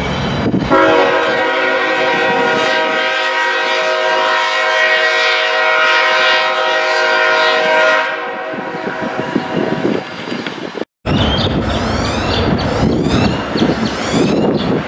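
Commuter train's air horn sounding one long chord of several notes for about seven seconds, then the train rolling past with rail noise and high sweeping squeals after a brief abrupt cut-out.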